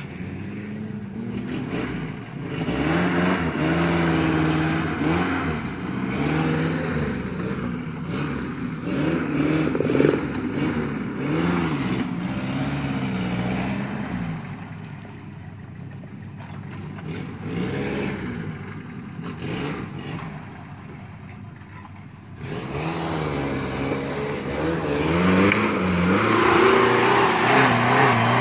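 Suzuki Jimny 4x4's engine revving up and down again and again under load as it climbs a steep, muddy slope. It is loudest near the end, where a rushing noise joins the engine.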